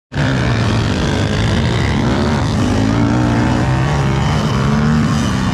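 Dirt bike engines on a motocross track, several running at once, their pitch rising and falling as the riders rev and change gear.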